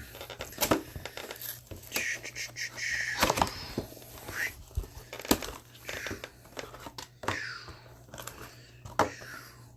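Trading card packaging being crinkled and torn open, with cards and wrappers being handled: irregular crackling rustles and sharp clicks.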